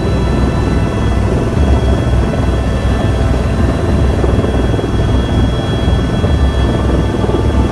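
Helicopter turbine and main rotor running, heard from inside the cabin: a low, pulsing rotor throb under a steady high turbine whine.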